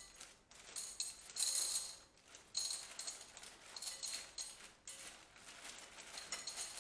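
Dried pasta being poured out in short bursts, the hard pieces rattling as they pile up while being weighed out.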